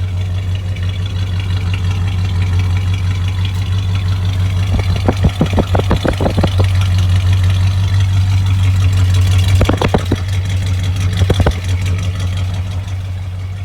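Truck engine idling steadily on a newly installed carburetor that has just been adjusted and is running well, with a few clusters of sharp clicks over the hum in the middle.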